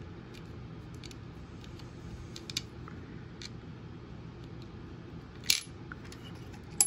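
Small metal clicks and ticks as metal standoffs are handled and twisted into place on a robot's circuit board. The clicks are scattered, with a louder one about five and a half seconds in and a sharp tick with a brief metallic ring at the very end.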